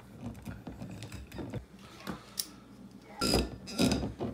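Corkscrew turning into a wine bottle's cork with faint small creaks and clicks, then the cork being drawn out of the neck with a louder squeaking rasp about three seconds in.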